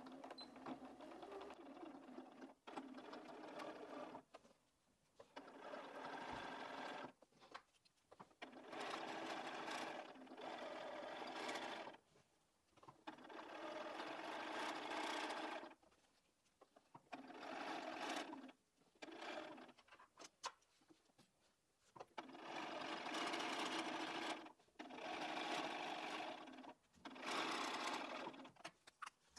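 Bernina 570 QE sewing machine stitching binding onto a quilted cushion in a series of short runs of one to four seconds, stopping briefly and starting again about ten times.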